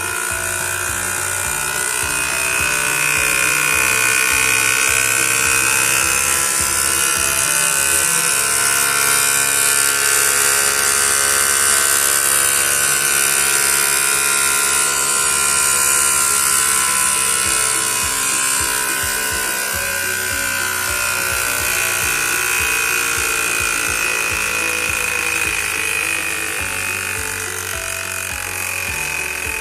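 Homemade air raid siren spinning and wailing: a steady high tone that climbs a little over the first few seconds, holds, then sags slowly toward the end, with a small motor whirring underneath.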